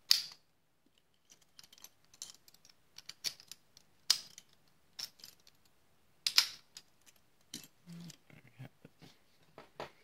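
American Lock 1105 padlock being handled and its shackle pushed home: a string of sharp metallic clicks and clinks, loudest at the start, about four seconds in and about six seconds in, with softer ticks between.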